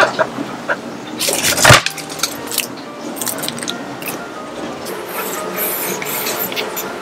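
Soft background music with close-up handling sounds: a wooden tablet-stand base and a clear acrylic stand being moved on a desk. There are small taps and clicks, a louder knock and rustle about a second and a half in, and crisp plastic clicks near the end as the acrylic stand is set onto the wooden base.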